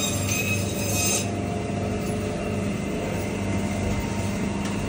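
Steady low machine hum, with a few ringing metallic clinks in about the first second and a single click near the end.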